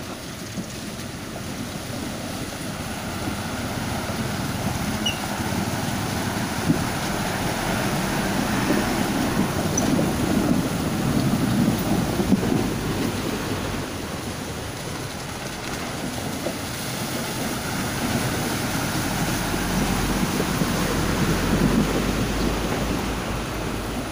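Motor vehicles wading through deep muddy floodwater: engines running while water sloshes and splashes around the wheels. The sound swells twice as vehicles pass close, first a pickup about halfway through and again near the end.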